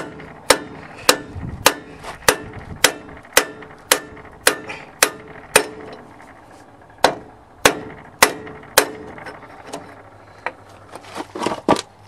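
Mini sledgehammer striking a metal oxygen-cylinder cap held against a new rear axle bearing, driving the bearing into the backhoe's axle housing. Steady blows come nearly twice a second, each with a short metallic ring. After a brief pause come four more blows, then lighter taps and a quick flurry near the end.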